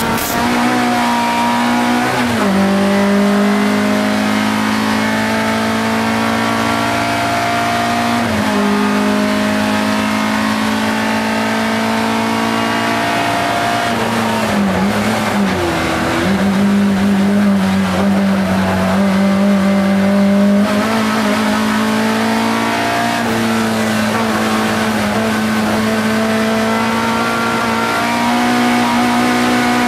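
Škoda 130 LR race car's rear-mounted four-cylinder engine at high revs, heard from inside the cabin. Gear changes about 2 and 8 seconds in, revs dip and climb back around the middle as the car brakes and takes a corner, and there is another shift near the end.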